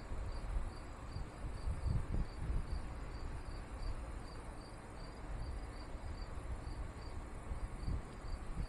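A cricket chirping steadily in an even rhythm of short, high chirps, over a low rumble of outdoor noise.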